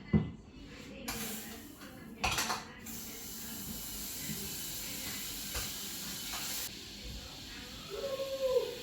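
Pots and a utensil knocking and clattering as butter goes into a pot to start a cheese sauce: a sharp knock at the start and another clatter about two seconds in, over a steady hiss.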